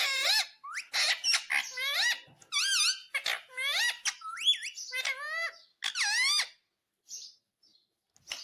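Indian ringneck parakeet giving a rapid series of shrill, squeaky calls, each sliding up and down in pitch. The calls stop about six and a half seconds in, with one faint call after.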